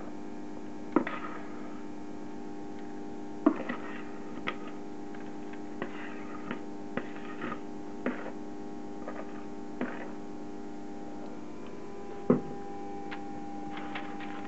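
Spatula scraping thick cake batter out of a plastic mixing bowl onto a paper-lined baking tray: soft scrapes and a few sharp knocks of the spatula against the bowl, over a steady hum.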